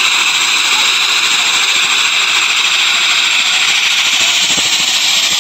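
Twin-turboprop airliner's engine running steadily on the apron, a loud, even high whine and hiss.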